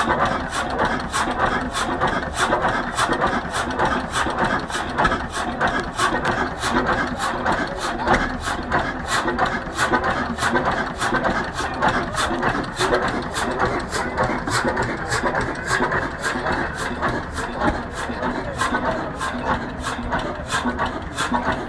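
1925 Hein 18 hp single-cylinder marine hot-bulb engine running slowly, with a steady, even knocking beat a little over two strokes a second.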